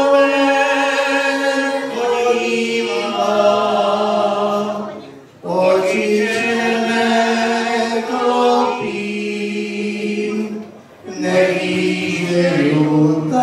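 A man singing into a microphone in long held notes, with no instruments heard. There are short breaks between phrases about five seconds and eleven seconds in.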